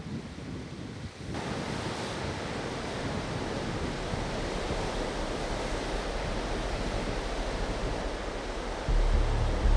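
Ocean surf breaking: a steady wash that comes up about a second in over a low wind rumble. Near the end a deep bass tone of music comes in.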